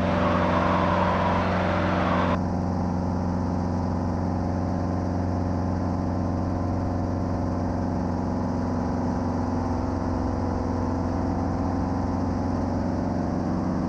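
Safari 400 experimental helicopter's Titan 390 piston engine and rotor running steadily at an even pitch. A higher hiss over it stops abruptly about two seconds in.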